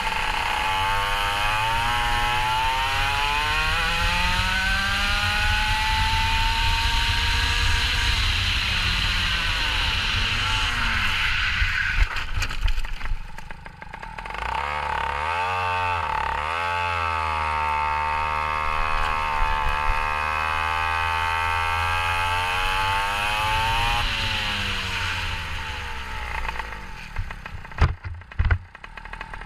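Go-kart engine under hard throttle, its pitch climbing and wavering through the corners. It drops off about twelve seconds in as the throttle is lifted, climbs again and holds a steady high note, then falls away near the end, with a few sharp knocks.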